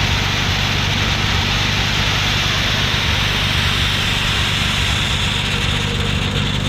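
Gleaner combine running steadily while harvesting corn: an even engine hum with a constant hiss over it.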